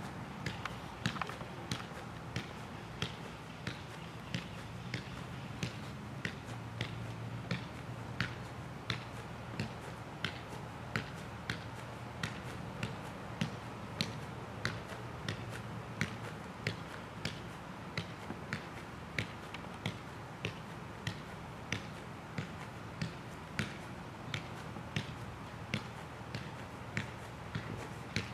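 A size one soccer ball being juggled on the foot: a steady run of light, sharp taps of foot against ball, about three every two seconds.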